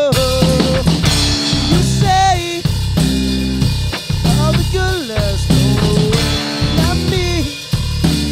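Rock music with a drum kit and a lead melody line that slides and bends in pitch.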